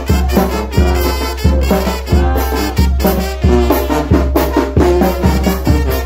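Small Mexican brass band playing a chilena: trumpets and sousaphone carry the tune over a bass drum with a mounted cymbal and a pair of timbales. A strong drum stroke lands about every two-thirds of a second.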